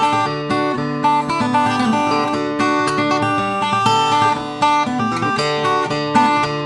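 Background music played on acoustic guitar, a quick run of plucked notes.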